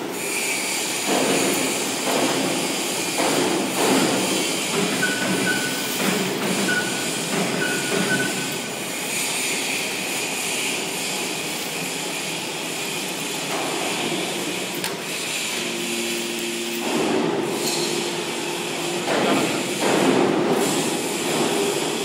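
Enerpat hydraulic metal baler running as its door lifts and the ejection ram pushes out a compressed bale of metal shavings, then the door starts back down. It makes a steady mechanical din, with a few short high tones in the first half and a lower steady hum for a few seconds near the end.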